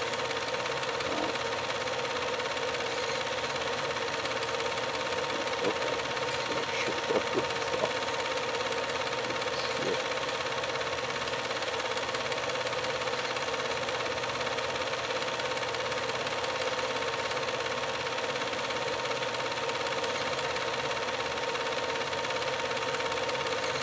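Steady machine running noise with a constant high hum, and a few faint knocks about six to ten seconds in.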